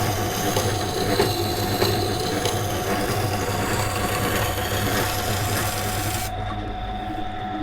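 Electric water grinder running with a steady hum while a carbon steel knife blade is ground on its wet stone wheel, a rough scraping hiss of the secondary bevel being put on. About six seconds in the scraping stops as the blade comes off the wheel, and the motor hum carries on.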